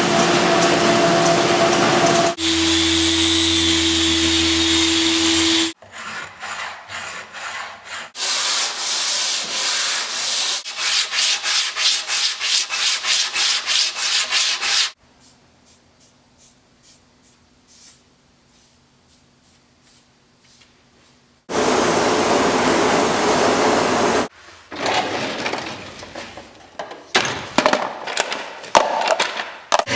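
Woodworking sounds in short edited clips. A steady power-tool noise runs at the start and again about two-thirds through. In the middle, rhythmic strokes of about three a second rub on wood, like sanding by hand.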